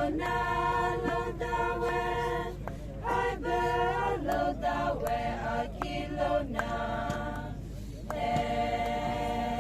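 Voices singing unaccompanied in long held notes with a chant-like line, broken by short pauses between phrases.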